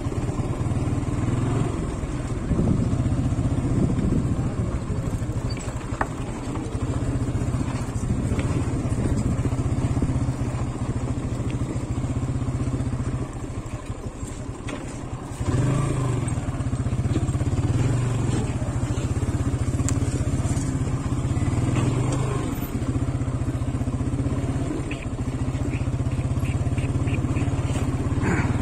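TVS Apache RTR 180's single-cylinder engine running at low speed as the motorcycle rides over a rough dirt track. It eases off briefly about halfway through, then pulls again.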